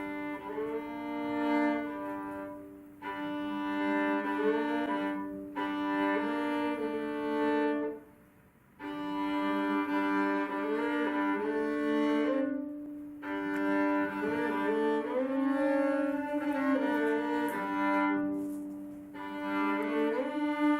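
Solo violin playing a slow, sliding melody over a steady held drone note, bowed in long phrases with short breaks and one near-silent pause about eight seconds in.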